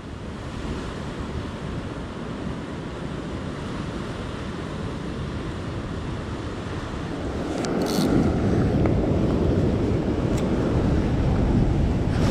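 Ocean surf washing over sandstone rock ledges, a steady rushing wash, with wind buffeting the microphone; the wind-and-surf noise gets heavier about seven or eight seconds in.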